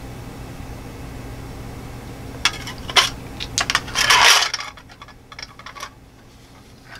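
Small metal cigarette tin of flint-and-steel gear being handled: a few sharp metallic clicks and clinks as the pieces go back in, then a short scraping rattle about four seconds in as the tin is shut, followed by faint ticks.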